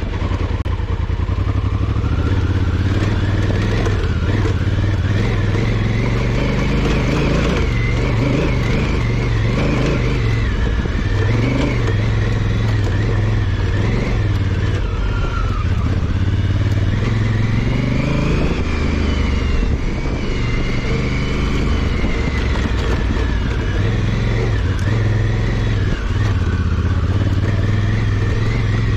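Honda Africa Twin CRF1000L's parallel-twin engine running as the bike is ridden off-road, its pitch rising and falling with the throttle.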